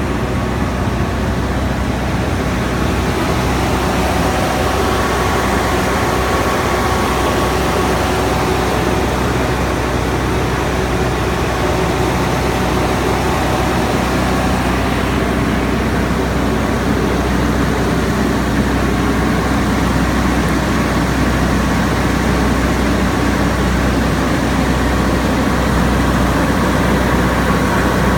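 Trielectron 20-ton aircraft ground air-conditioning unit running, a steady loud mechanical drone with a low hum and several steady tones. It is just started and not yet cooling.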